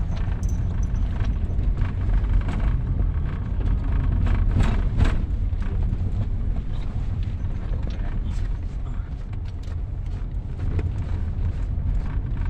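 Inside a moving Toyota car: a steady low rumble of engine and tyres, with brief knocks and rattles at several points as the car jolts over a rough, broken road surface.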